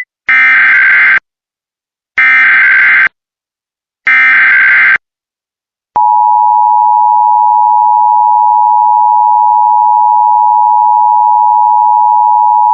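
Emergency Alert System tones: three bursts of SAME digital header data tones, about a second each and a second apart, then from about six seconds in the steady two-note EAS attention signal (853 and 960 Hz). Together they open a new alert message, here the all-clear that follows.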